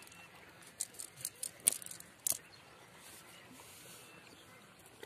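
A wet nylon cast net being handled on concrete while the catch is picked out of it: a quick run of short clicks, scrapes and rustles in the first half, the loudest about a second and a half in, then only a faint steady hiss.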